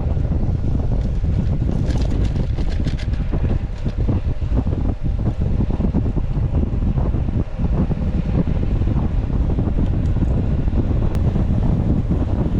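Loud, steady wind buffeting on the microphone of a camera carried on a bike at road speed, a dense low rush with no let-up.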